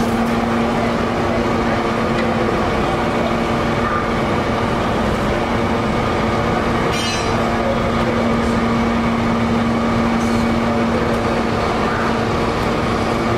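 Fire apparatus engines running steadily, a constant droning hum that holds one pitch, with a brief high crackle about seven seconds in.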